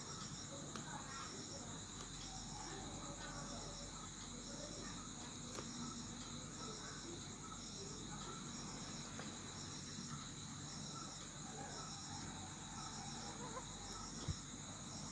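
Faint background with a steady high whine and a short high chirp repeating about once a second, and a single click near the end.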